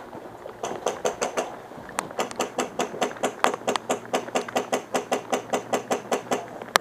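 A rapid, even run of sharp clicks and knocks, about five a second, lasting several seconds and stopping shortly before a single sharper click.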